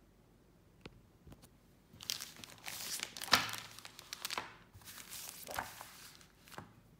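Clear plastic bag crinkling and rustling as it is handled, in irregular bursts from about two seconds in, loudest near the middle, with a few faint ticks before.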